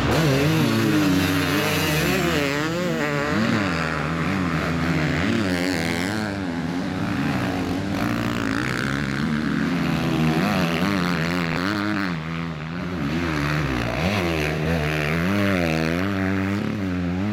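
Motocross bikes racing on a dirt track, their engines repeatedly revving up and falling off as they take the jumps and corners, several engines overlapping.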